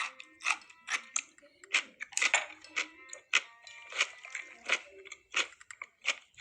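Kitchen cooking sounds: a run of sharp, irregular taps and clicks, two or three a second, over faint background music.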